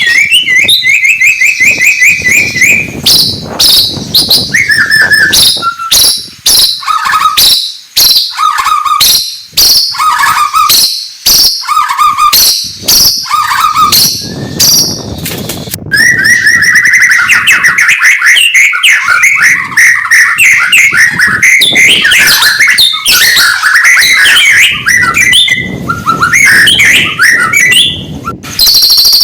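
White-rumped shama (murai batu) singing loudly: a fast run of short, varied whistled phrases and chips. About halfway through it breaks into a long, unbroken stream of rapid warbling.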